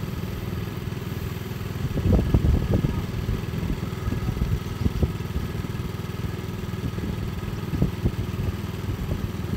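Motorcycle running along a road, its engine and road noise heard from the moving bike, with a louder stretch of low rumble about two seconds in.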